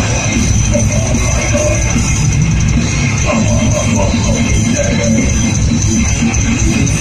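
A heavy metal band playing live, loud and dense, heard from among the audience through the venue's PA.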